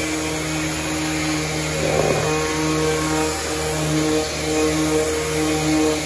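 Electric orbital sander with a rectangular pad running steadily as it scuff-sands a primed cabinet door between coats. Its hum rises and falls a little as it is moved across the panel, with a brief rougher patch about two seconds in.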